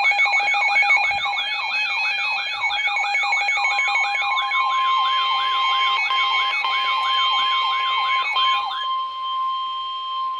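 Weather alert radio sounding a siren-like alarm: a falling whoop repeated a little over twice a second with steady beeping tones under it. About three and a half seconds in, a steady long tone, the Weather Radio warning alarm tone that heralds a severe weather warning, joins it; the sweeping stops near nine seconds, leaving the steady tone.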